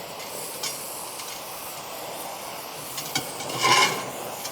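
Oxy-fuel welding torch flame hissing steadily while preheating a cast aluminium wheel centre, with a few light clicks and a brief louder noise about three and a half seconds in.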